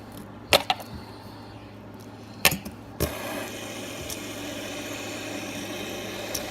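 A plastic water bottle being flipped and landing on hard surfaces: a few short knocks and thuds, the last about three seconds in, followed by a steady low hum in the room.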